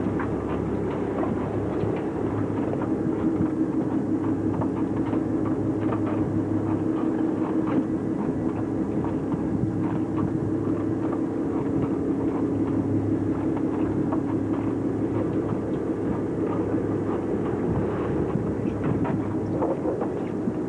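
Boat engine running at a steady drone, with a few light knocks on the deck.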